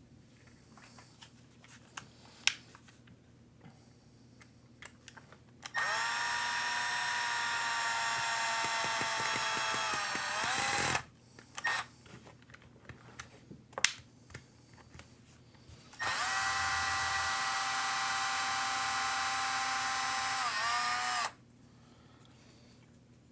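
Cordless power driver with a hex bit running twice for about five seconds each time, a steady whine that winds down as each run ends, with small clicks of parts and screws being handled in between.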